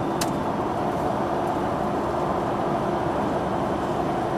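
Steady road and engine noise heard inside a moving truck's cabin, with a faint steady hum. A single sharp click sounds just after the start.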